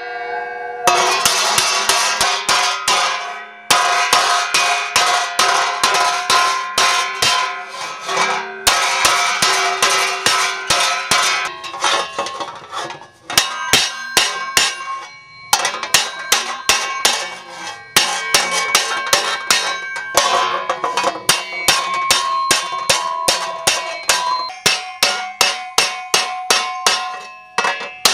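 Hand hammer striking a steel sheet laid over the holes of a steel forming block, cold-forging a dish into the metal. The blows come fast, about two to three a second, in runs broken by brief pauses, each with a bright metallic ring.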